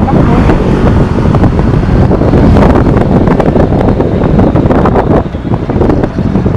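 Loud wind noise buffeting the microphone of a camera riding on a moving motorcycle, with the motorcycle's running and road noise underneath.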